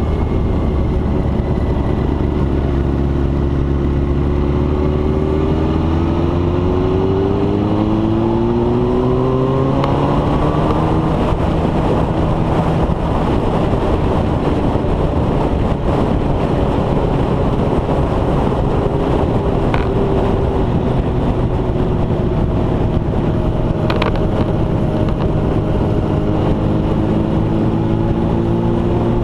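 Motorcycle engine running at road speed, with wind noise over the microphone. The engine pitch climbs steadily for several seconds as it accelerates, about three seconds in, and rises again over the last several seconds.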